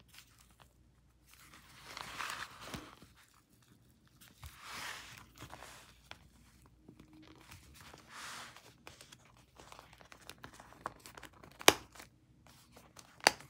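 Paper being handled, rustling and crinkling in three swells, then two sharp clicks near the end.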